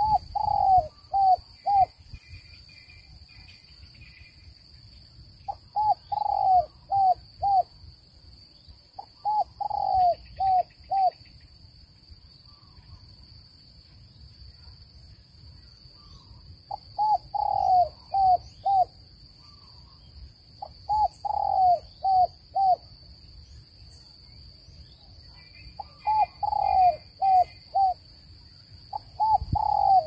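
Spotted dove cooing its song: about seven phrases a few seconds apart, each a longer falling coo followed by three or four shorter coos.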